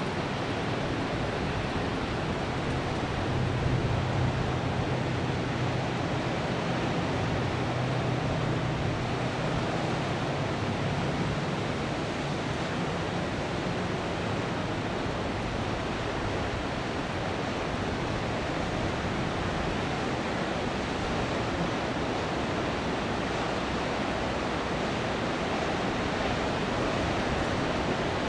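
Steady rushing wash of distant surf breaking on the beach, mixed with wind. A low hum comes in about three seconds in and fades out by about twelve seconds.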